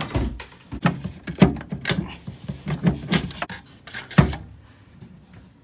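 A combi boiler's flue elbow being worked loose and pulled off the boiler and the straight flue length: a busy run of knocks, scrapes and rattles, with the loudest knocks about a second and a half and four seconds in.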